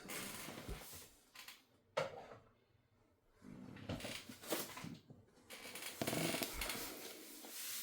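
Handling noises: objects shuffled and moved about, with a sharp knock about two seconds in, a second of quiet, then more rustling and clatter.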